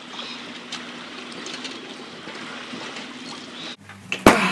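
Steady rushing noise with a faint hum that cuts off abruptly near the end, followed by a single loud, sharp bang.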